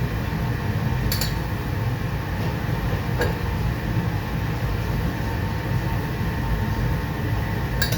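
Steady low rumble of kitchen background noise with a few sharp clinks of dishes, about a second in, around three seconds in and near the end.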